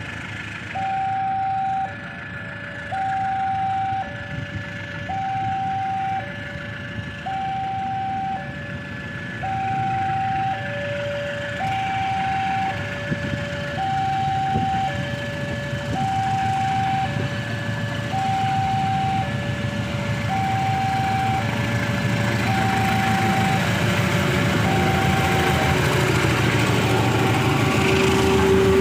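Electronic two-tone railway level-crossing warning alarm, alternating a higher and a lower tone about a second each. The rumble of an approaching diesel locomotive builds up under it and grows louder over the second half.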